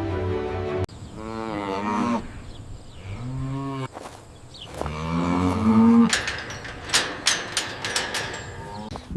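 Cow mooing three times, the last call the longest, then a run of sharp knocks. Background music cuts off just before the first moo.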